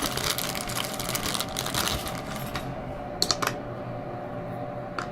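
Small metal clicks and rattles of a wrench being fitted to nuts and washers on bolts, dense for the first couple of seconds, then a few separate clicks.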